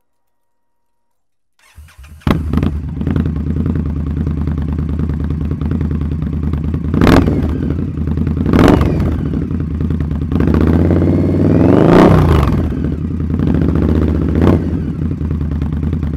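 Indian Scout Bobber's V-twin starting up about two seconds in through Roland Sands Track slip-on mufflers, then idling with four blips of the throttle, the third one a longer rev that rises and falls.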